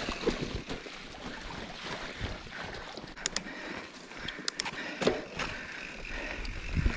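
Mountain bike rolling along a dirt trail: steady tyre noise and wind on the microphone, with a few sharp clicks and rattles from the bike.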